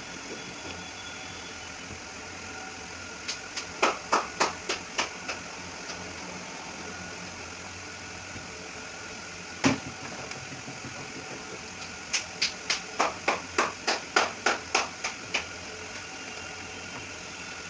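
Knife chopping peeled potatoes into slices and chips on a wooden cutting board: quick runs of sharp knocks, about eight a few seconds in, a single one midway, and about a dozen near the end. A steady mechanical hum runs underneath.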